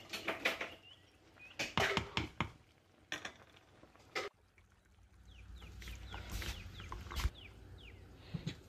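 A spoon knocking and clattering against a pot of boiling basmati rice, then the low rumble of the water at a rolling boil, with a few faint, short falling chirps over it.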